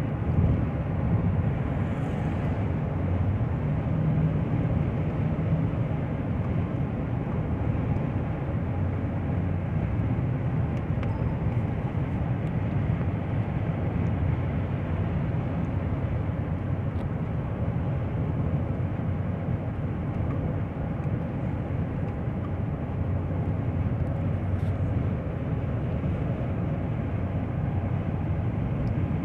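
Car driving on a road test: steady engine and road noise, heaviest in the low range, with no sharp changes. The car is being tested for an engine misfire that its scan reads as random across several cylinders.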